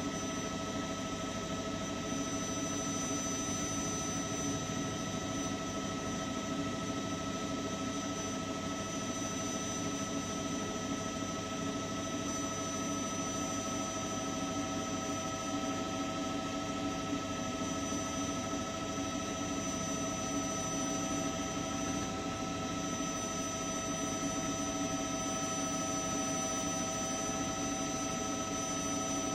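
Helicopter turbine engine and rotor running steadily, a constant whine over a dense drone, heard from on board.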